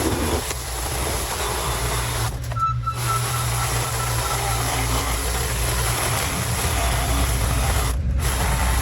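An engine running steadily: a low drone with a rushing hiss above it, and a faint brief whistle about three seconds in.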